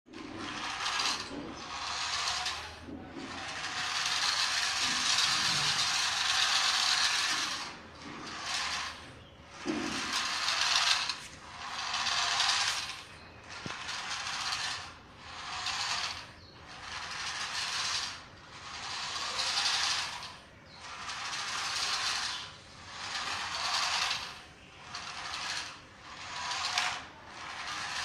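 Toy remote-control car's small electric motor and plastic gearbox whirring in stop-start spurts, each lasting one to two seconds with short pauses between, with one longer run of about four seconds starting about three seconds in.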